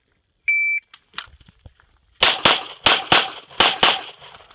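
A shot timer's start beep, short and steady, about half a second in. Then, from about two seconds in, a string of about seven pistol shots fired in quick pairs.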